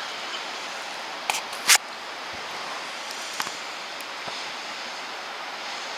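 Steady outdoor hiss of a snowstorm, with two short sharp noises about a second and a half in, the second one loud, and a few faint clicks later.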